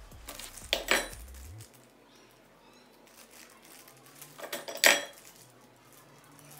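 Metal parts of a paper-towel holder knocking and clinking together as it is assembled by hand: a short clatter about a second in and a louder one near five seconds, with quiet handling between.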